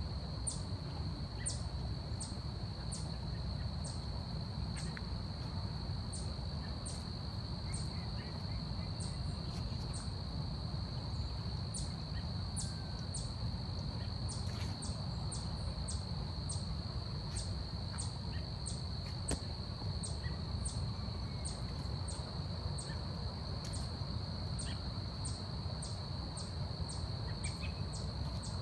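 Forest insects: a steady high-pitched drone, with short, sharp high chirps repeating unevenly about twice a second over a low steady rumble.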